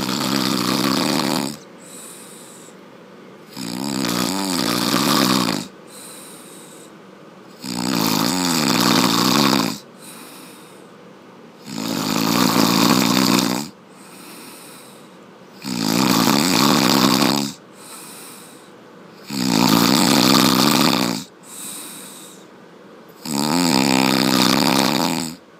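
Loud snoring: seven long snores about four seconds apart, each lasting a second and a half to two seconds, with softer breaths between them.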